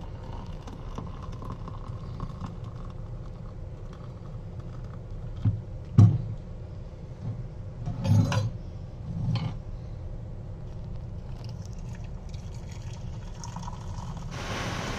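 Coffee being made at a tabletop: a kettle and ceramic mugs handled, with a sharp clink about six seconds in and two short clattering knocks around eight and nine seconds, over a steady low hum.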